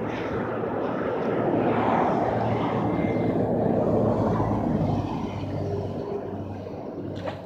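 Engine noise of something passing: a low hum and rushing that grows louder about a second and a half in, holds for a few seconds, then fades toward the end.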